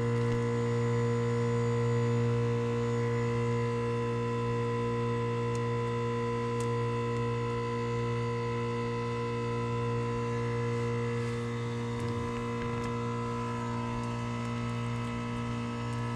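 Heat pump outdoor unit running: a steady electrical hum with a strong low buzz and several higher steady tones above it, unchanging throughout.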